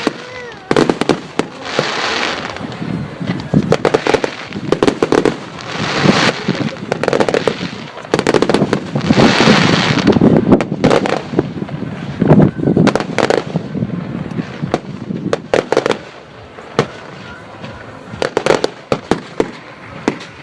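Firework display: many sharp bangs of shells bursting, with several surges of dense rapid crackling, the strongest about nine to ten seconds in.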